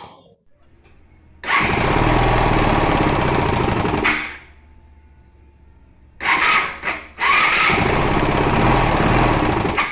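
Motorcycle engine speeding up in two loud stretches of about three seconds each, with a rapid sewing-machine-like clatter. The owner says the noise is not the camshaft but the piston striking the cylinder head.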